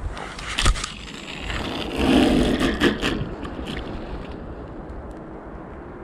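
Rustling and scraping of gear being handled by hand: a sharp knock just under a second in, then a louder scraping rustle with a few clicks around two to three seconds in, over a steady hiss.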